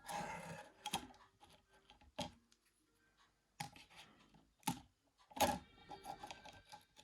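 Sharp clicks and taps of small phone parts being handled and fitted together by hand: about five louder clicks spread through, with faint ticks and a short rustle between them.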